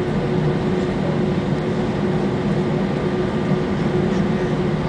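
Steady cabin noise inside an Airbus A320 taxiing on the ground: a constant rumble and hum from the engines at low thrust, with a faint steady tone running through it.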